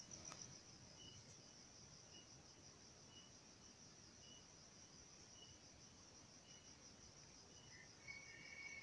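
Near silence with faint insect chirping: a steady high pulsing trill and soft short chirps about twice a second.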